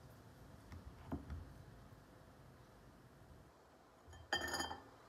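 Faint clicks of small metal tongs handling food on a lettuce leaf, then a short, louder clink with a ringing edge near the end.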